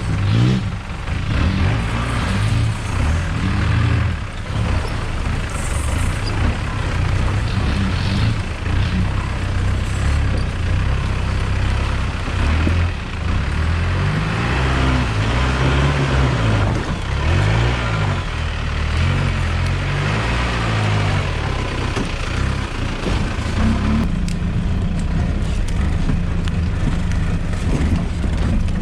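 A four-wheel-drive vehicle driving off-road, its engine note repeatedly rising and falling with throttle and load over a steady rushing noise. About 24 seconds in, the engine settles into a steadier, even note.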